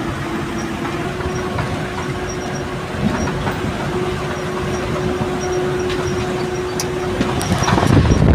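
Eicher truck's diesel engine and road noise heard from inside the cab while running downhill at speed, a steady rumble with a faint steady hum. Near the end the rumble grows louder as wind buffets the microphone.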